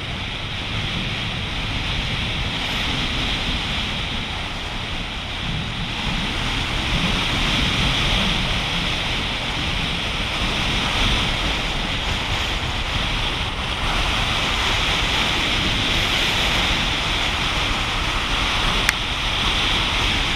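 Wind rushing over the microphone of a camera mounted on the outside of a car moving at road speed, with steady tire and road rumble underneath.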